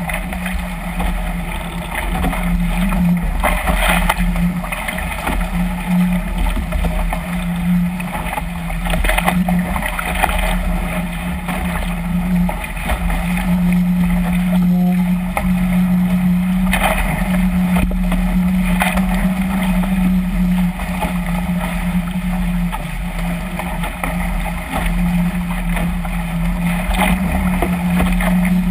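Chrysler Musketeer catamaran hull cutting through choppy lake water at speed: a constant rush of water and spray with wind on the microphone, broken by several sharper splashes as waves slap the hull. A steady low hum runs underneath.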